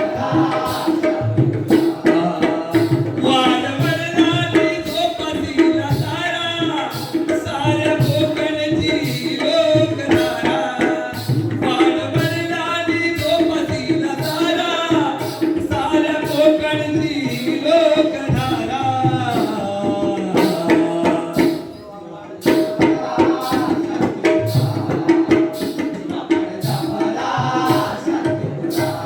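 Live Jakhadi folk music: sung verses over a steady hand-drum rhythm and a held accompanying tone. The singing stops around twenty seconds in, the music drops briefly near twenty-two seconds, and then the drumming picks up again.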